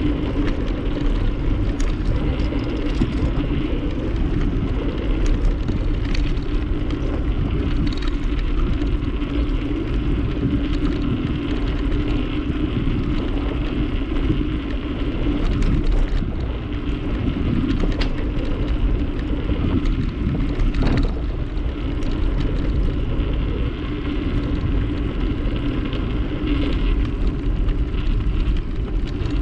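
Steady rumble of a bicycle riding along, with wind on the microphone and tyre noise, and a few faint ticks and rattles from the bike.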